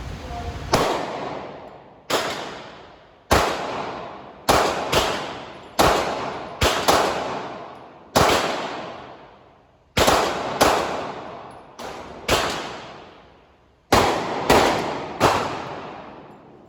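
A gun fired about sixteen times in single shots at uneven intervals, some in quick pairs, each bang trailing off in a long echoing decay; the string ends as the magazine runs empty.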